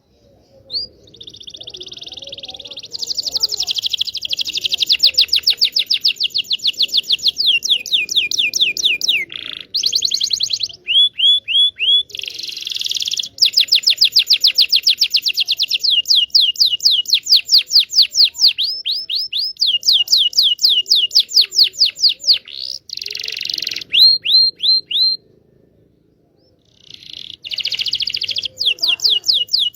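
Domestic canary song: long rolling trills of rapidly repeated notes, some fast and buzzy, others slower runs of distinct downward-sweeping notes, with short breaks between phrases and a pause of about two seconds near the end. It is a lure song of the kind played to get young or silent canaries singing.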